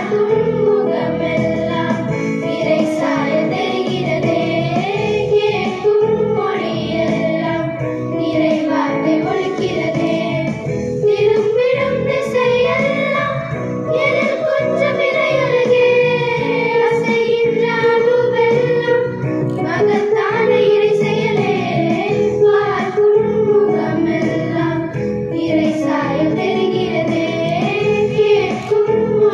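A group of schoolgirls singing a prayer song in unison into microphones, a continuous flowing melody.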